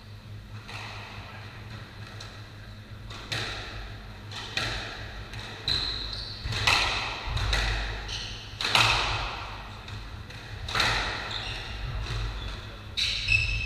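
Squash rally: the ball cracking off rackets and the court walls about every one to two seconds, each hit echoing around the court, with trainers squeaking briefly on the wooden floor.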